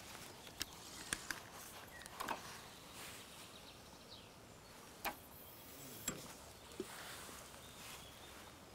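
Quiet pondside background with faint birdsong, broken by a few sharp clicks and knocks of fishing tackle being handled as a feeder rod is cast and set down, the loudest about five and six seconds in.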